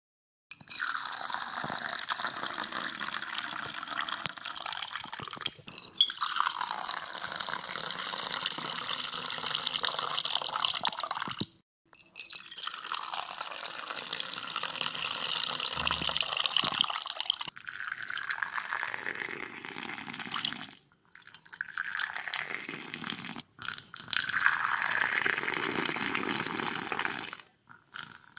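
Liquid being poured into a vessel, in a series of about six separate pours a few seconds each, with brief breaks between them.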